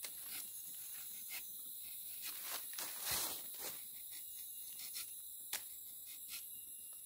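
Rubber-tapping knife scraping thin strips of bark along the tapping cut of a rubber tree, heard as a scatter of short scratches and clicks, with a louder rustle of dry leaf litter a little past three seconds in. A steady high insect chorus runs underneath.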